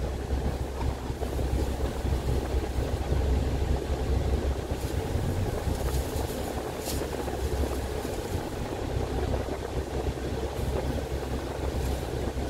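Double-decker coach's diesel engine running with a steady low rumble, heard from inside the cabin as the coach drives.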